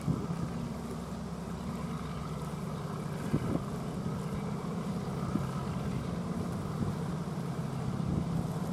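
An engine running steadily with a low, even hum, with a couple of faint knocks about three and a half seconds in.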